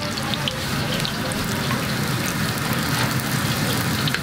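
A bolani, a stuffed flatbread, deep-frying in a wide pan of hot oil: steady sizzling with many small scattered crackles, over a low steady rumble.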